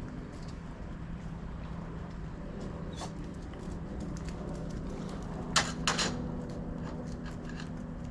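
A beagle moving about on a chain leash: light ticks and rattles, with two sharp clinks about half a second apart a little past the middle, over a steady low hum.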